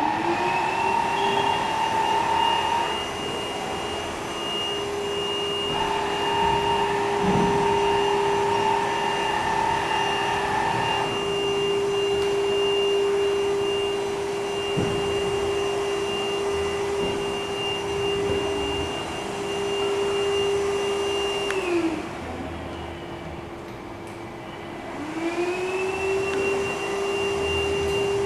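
Kurumi KV 05 cordless stick vacuum cleaner's motor being test-run: it spins up with a rising whine and runs steadily, winds down with a falling whine a little over twenty seconds in, then spins up again a few seconds later. An extra higher hum comes and goes twice in the first half.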